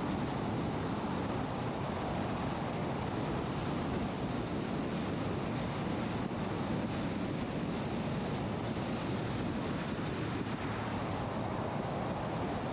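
Steady road and wind noise of a car cruising at highway speed, an even rushing hiss with no engine note standing out and no change in level.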